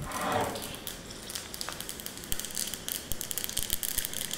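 Mustard seeds and green chillies spluttering in hot oil in a small steel pan, a steady stream of small pops and crackles. A brief louder sound comes right at the start.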